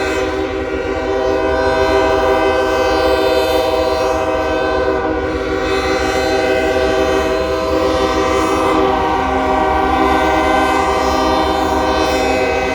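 Locomotive air horns blowing long, held chords without a break; the mix of tones shifts about two-thirds of the way through as the horn sounds change.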